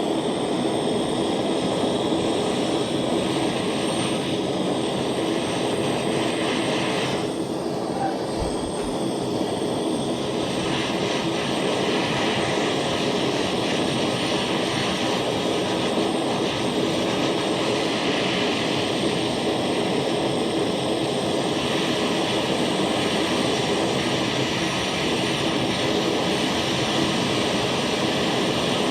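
Jeweler's soldering torch burning with a steady rushing hiss, the flame held on the work for a long stretch.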